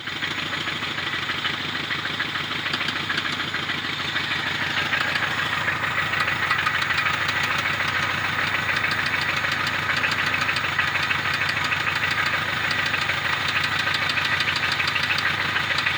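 Opel Kadett 1.2-litre engine running with a steady, rapid knock: internal engine knock, bad enough that the owner jokes it will break out of the block.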